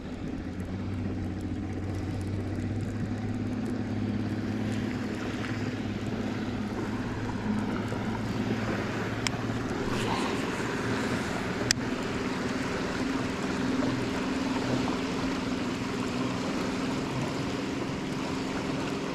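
Outboard motor of a fishing boat running steadily out on the river, a continuous engine drone. Two sharp clicks sound about halfway through.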